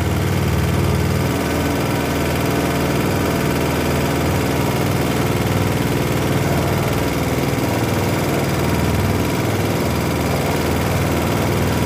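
Small 3.5 hp gasoline engine running in a wooden boat. Its sound changes about a second and a half in, just after a hand is on the engine, and then runs unevenly. The engine is shaking, which the owner says needs fixing.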